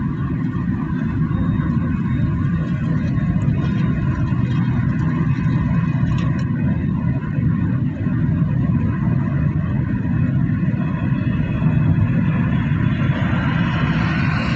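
Steady road noise heard from inside a moving car: a low, even drone of tyres on the road and engine.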